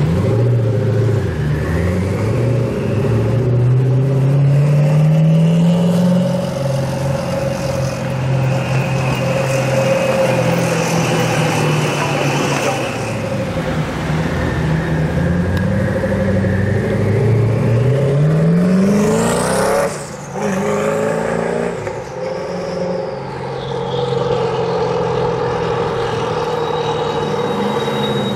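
Koenigsegg Agera R's twin-turbo V8 revving and accelerating in short pulls, its pitch climbing and dropping back several times. About two-thirds of the way in it revs up steeply and cuts off suddenly, followed by high whistles falling away.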